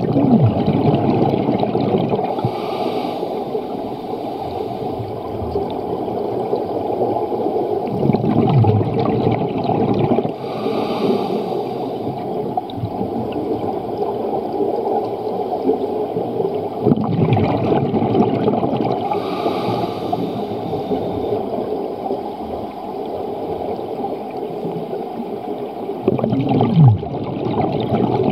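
Scuba diver breathing through a regulator underwater. A rush of exhaled bubbles with a falling low rumble alternates with a hissing inhale, in a slow cycle about every nine seconds, over a constant dense underwater rumble.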